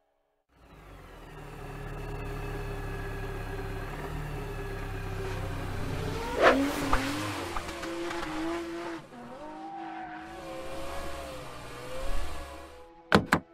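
Car engine sound effect, running as the car drives and then accelerating. About six and a half seconds in the tyres squeal sharply, and wavering squeals follow as the car skids to a stop. Two sharp knocks come near the end.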